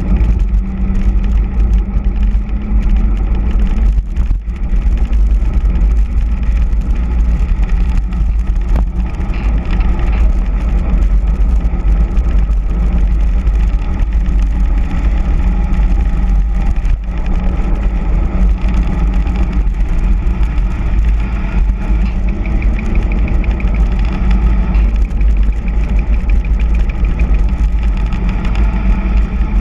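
Wind rushing hard over a handlebar-mounted camera's microphone during a fast mountain-bike descent, a loud steady rumble. Under it runs the hum of all-terrain tyres, pumped to over 3 bar, rolling on asphalt.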